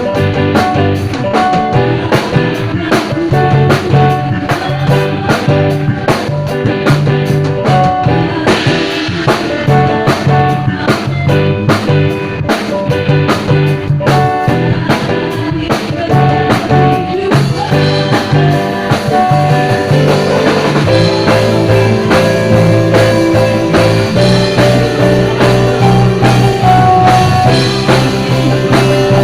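Worship band music: a drum kit keeping a steady beat under guitar, getting fuller and brighter about eight seconds in.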